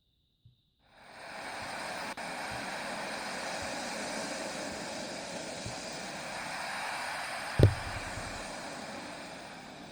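Wood fire burning in a fireplace: a steady rushing hiss that fades in about a second in, with one loud low thump from the fire about seven and a half seconds in.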